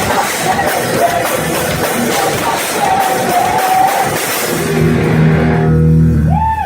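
Live heavy rock band playing loud, with distorted guitars, drums and a vocal line. About four and a half seconds in the band settles on a held final chord, which stops abruptly just before the end.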